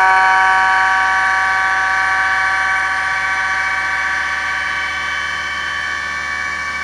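Miracle A7 Plus key machine's cutter spindle running with a steady, many-toned whine while it cuts a Mercedes HU64 key blank, slowly getting a little quieter.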